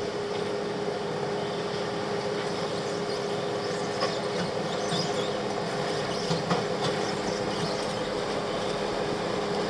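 Off-road vehicle engine running steadily at low speed, with a few light knocks about halfway through.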